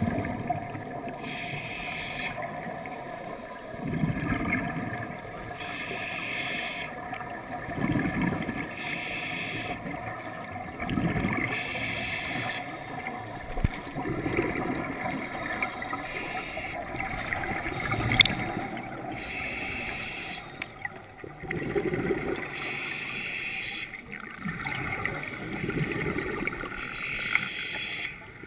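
Scuba diver breathing through a regulator, heard underwater: a hissing inhale alternating with a bubbling exhale, about one breath every three to four seconds.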